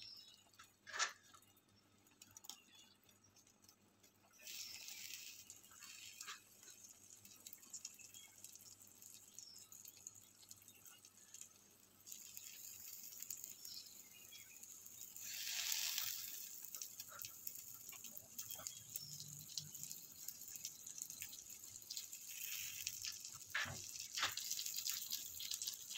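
Beaten egg sizzling faintly in a frying pan, a fine crackling hiss that grows stronger about halfway through. A sharp click sounds about a second in.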